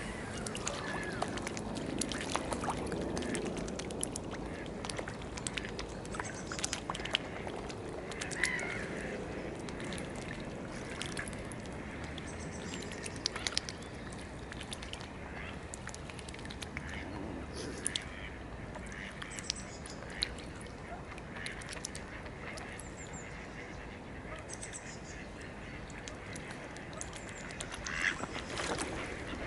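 Mallard ducks quacking now and then over many small water splashes and drips as the birds feed at the surface, with a steady low background rumble.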